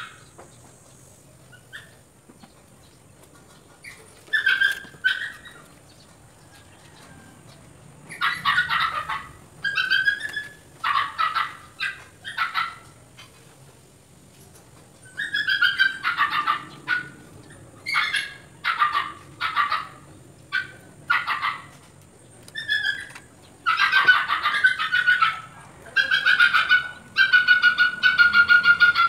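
Bouts of short, high-pitched animal cries, several a second, with quiet gaps between bouts and a longer drawn-out cry near the end.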